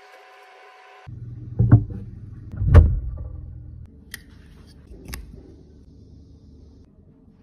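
Gloved hands handling a metal lipstick mould and a lipstick tube: two dull thumps about a second apart, the second the loudest, then two sharp clicks about a second apart.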